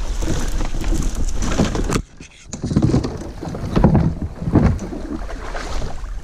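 Fishing kayak pushing through overhanging branches, twigs rustling and scraping along it. After a short break about two seconds in, wind buffets the microphone in a few low gusts.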